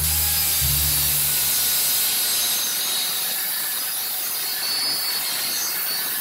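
Hand-held electric circular saw running steadily as its blade cuts lengthwise through a hollow-core door.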